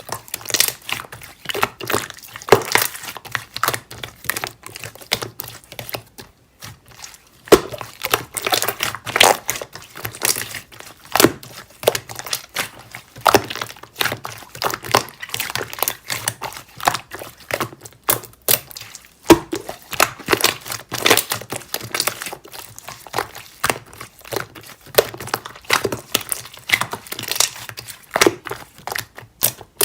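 Slime being squished and stretched by hand, making a dense, irregular run of sticky clicks and crackles.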